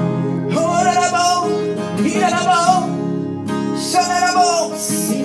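Worship music: acoustic guitar accompaniment under a voice singing three long, wavering held phrases with no clear words.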